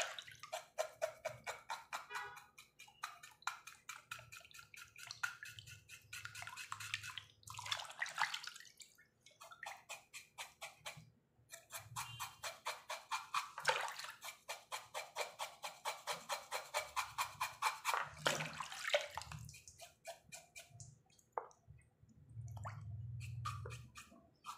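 Hands scrubbing and scraping the hair off a raw cow's muzzle in a basin of water: quick wet rubbing strokes, about three a second, with splashing and dripping, pausing briefly now and then.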